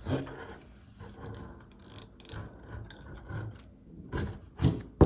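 Aluminium Deutz TCD 2012 piston with rings being handled and turned over: a run of light metallic clicks and rattles, with a knock at the start and louder knocks near the end as it is set down on the table.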